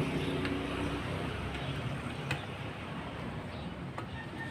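Steady background rumble and hum with a few faint, light clicks spread through it, as of small parts being handled.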